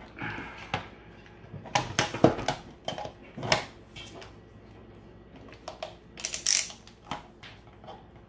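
Hard plastic tool case and screwdriver bits clicking and clattering as a bit is picked out and fitted into a small screwdriver, with handling knocks on the plastic microphone body. It comes as a series of separate sharp clicks and rattles with short quiet gaps between them.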